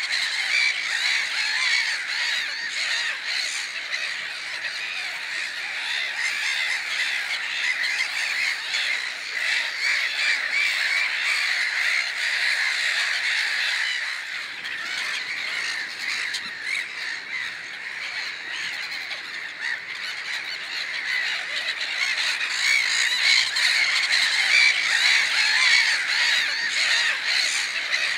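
A large flock of birds calling all at once, a dense, unbroken chorus of overlapping calls. It eases off a little about halfway through and swells again near the end.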